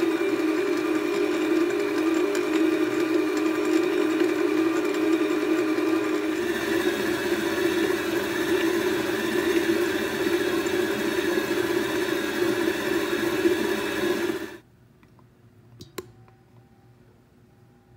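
Stand mixer motor running steadily with a hum and whine while its dough hook mixes and kneads bread dough in a stainless steel bowl; its tone changes about six seconds in. The motor sound cuts off abruptly near the end, leaving faint room tone and a light tap.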